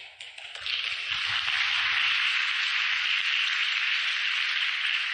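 Audience applauding, a steady dense clapping that swells in about a second in and holds.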